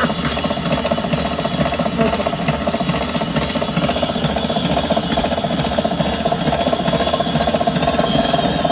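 Stand mixer running steadily, its beater whipping eggs and brown sugar in a metal bowl until creamy.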